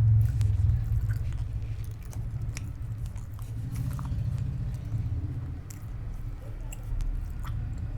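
A person chewing and biting food, with many short, scattered clicks from the mouth.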